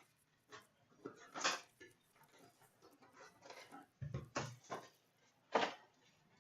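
Hand-handled packaging of a trading card box being torn and opened: several short crinkling, rustling bursts, the loudest about a second and a half in and near the end.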